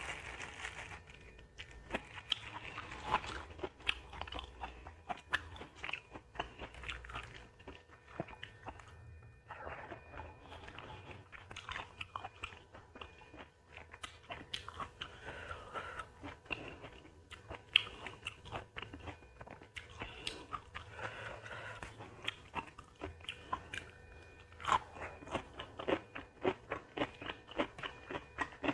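Close-up eating sounds: crunchy biting and chewing, with many small sharp crunches and mouth clicks, of fried catfish and raw vegetables with rice.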